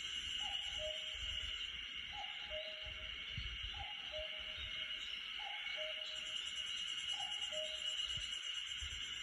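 Common cuckoo calling its two-note falling "cuck-oo", repeated five times at an even pace, over a steady high hiss.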